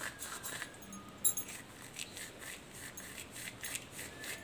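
Dry fennel seeds rubbed and crushed between the fingers: a faint, irregular crackling rustle, with one sharper click a little over a second in.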